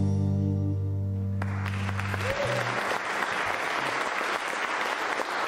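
A live rock band's last chord rings out on keyboard, guitars and bass and dies away. Audience applause starts about a second and a half in and carries on after the chord has ended.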